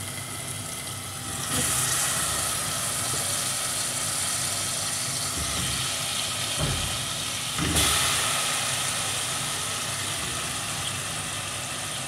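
Yogurt-marinated chicken drumsticks sizzling in a pot of hot oil and cumin. The sizzle surges twice, about a second and a half in and again near eight seconds, as fresh pieces go into the oil, then slowly eases.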